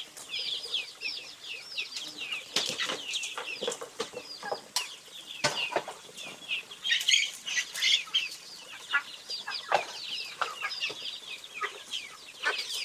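Chickens calling: many short, high peeps and chirps overlapping, with scattered sharp clicks and knocks among them.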